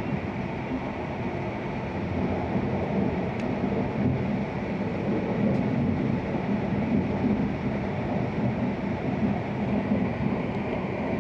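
Running noise inside the cabin of an E6-series Shinkansen car at speed: a steady low rumble that grows a little louder after about two seconds.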